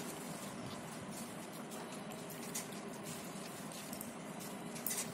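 Quiet sounds of a pug being hand-fed cucumber pieces from a steel bowl: a steady faint rustle with a few sharp clicks, one in the middle and one near the end.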